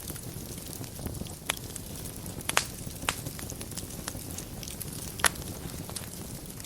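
Wood fire burning in a fireplace: a steady low rumble of flames with scattered crackles and sharp pops. The loudest pops come about two and a half seconds in and again a little past five seconds.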